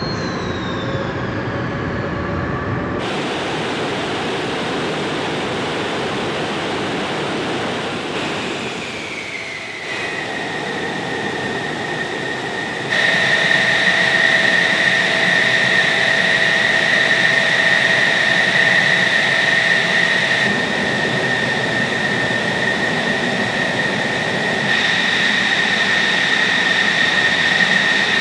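F-16 Fighting Falcon's jet engine running at idle: a steady high turbine whine over a rushing roar. The pitch slides down and settles about ten seconds in, and the whine grows stronger a few seconds later. The sound jumps abruptly in level a few times.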